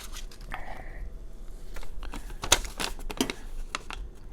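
Paper and packaging being handled, with scattered light clicks and brief crinkling rustles.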